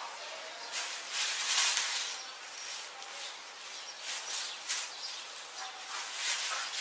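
Thin plastic carrier bag crinkling and rustling in irregular bursts as a kitten plays inside it and chews at it.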